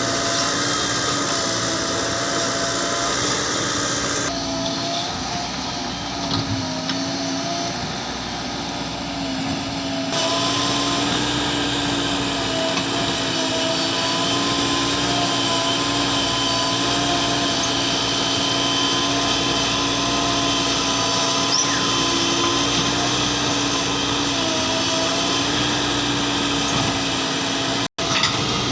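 Diesel engine of a JCB 3DX Plus backhoe loader running steadily under working load, its pitch holding with small dips and rises, with a brief break in the sound near the end.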